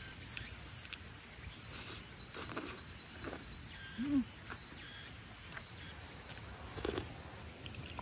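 Quiet eating sounds: leafy greens rustling, small clicks and chewing over faint insect ambience. About four seconds in comes a short low hummed 'mm'.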